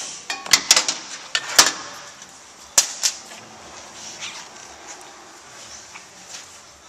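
Metal hand tools and small parts clanking and clicking as they are handled and set down on a steel workbench: a quick run of sharp knocks in the first three seconds, then quieter rustling and tapping.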